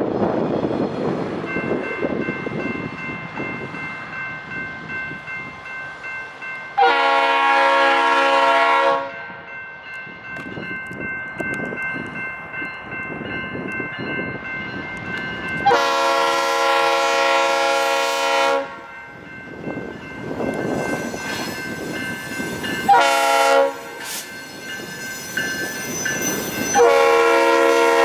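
Locomotive air horn sounding the grade-crossing signal: two long blasts, a short one, then a long one. Under it a General Signals Type 2 electronic crossing bell starts ringing steadily about a second and a half in.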